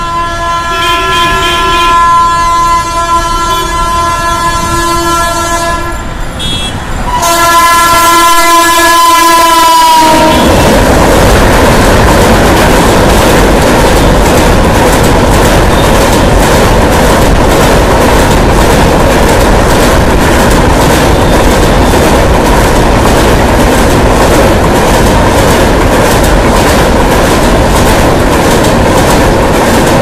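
Multi-tone horn of a WAP-7 electric locomotive sounding two long, loud blasts, the second dipping slightly in pitch as it ends. From about ten seconds in, the passing passenger train takes over: a loud steady rumble with a rhythmic clatter of wheels over rail joints.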